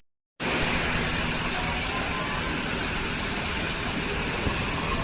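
Steady rain falling, an even hiss with the odd faint drop tick, after a split-second gap at the very start.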